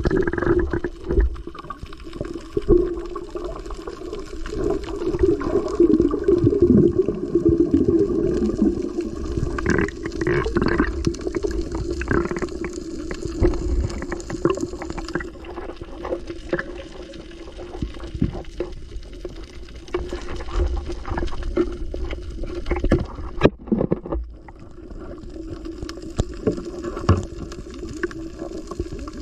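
Underwater sound picked up by a camera in its waterproof housing: muffled water movement and gurgling, with scattered clicks and knocks.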